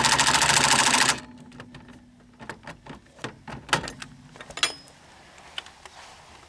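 Half-inch Ryobi impact wrench on its low setting 1, running a new shock absorber's bottom bolt in snug before final torquing. It runs steadily and cuts off abruptly about a second in, followed by a few light clicks and clinks.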